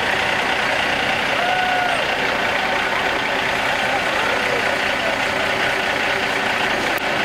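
Heavy tow truck's diesel engine idling, a steady, loud noise, with a few short calls from onlookers about one to two seconds in.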